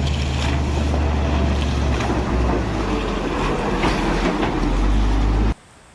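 Water spraying steadily over a muddy toy bulldozer as it is washed, with a steady low motor hum underneath; both cut off suddenly near the end.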